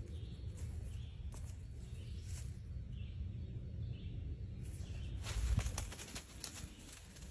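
Rustling and crackling in grass and dry leaf litter, with the loudest burst about five and a half seconds in, over a low rumble on the phone's microphone.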